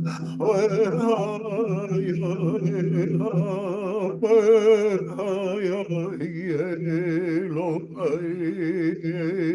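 A voice singing with a wide, wavering vibrato over a steady low held drone.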